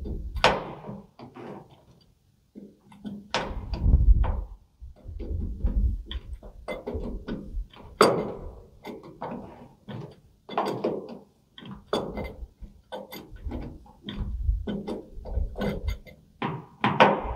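Pipe wrench clicking and knocking irregularly against a steel fuel tank fitting while a 2-inch adapter is tightened into the tank's port.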